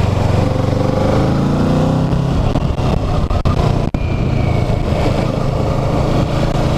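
Kawasaki motorcycle engine running under way through a bend, its note shifting in pitch during the first couple of seconds, with steady wind rush. The sound dips sharply for a moment about four seconds in.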